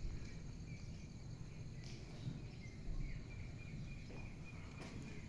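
Quiet outdoor ambience: a low rumble of wind and handling on the microphone, with faint high insect chirping repeated rapidly, thicker in the second half.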